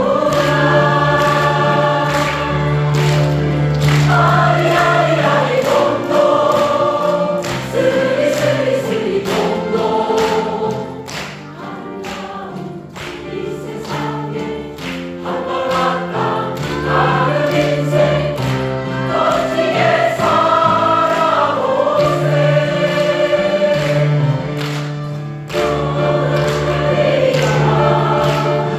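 Choir singing a song. It softens for a few seconds around the middle, then swells back to full voice.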